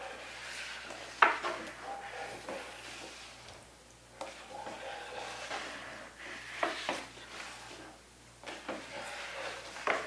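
Liquid developer sloshing and swishing in a developing tray as a gloved hand pushes a large sheet of photographic paper back and forth through it. A sharp knock comes about a second in, and a few more near the end.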